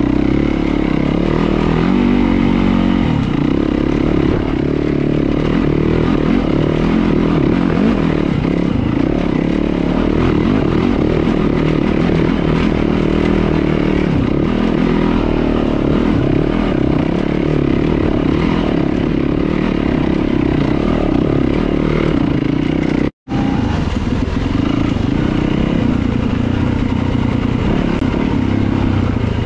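Dirt bike engine running on a rough dirt trail, heard from on the bike itself, its pitch rising and falling as the throttle opens and closes. The sound cuts out for an instant about two-thirds of the way through.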